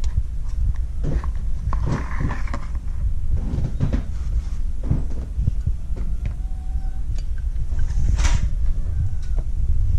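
Irregular knocks and taps over a steady low rumble: a glue bottle and mixing bowl being handled as glue is poured out.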